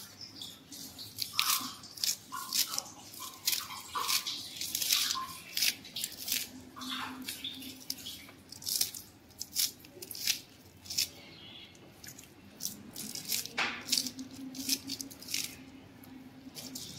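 Knife slicing finely through spring onion stalks held in the hand over a plastic bowl: a run of short, sharp cuts at an uneven pace, a few a second.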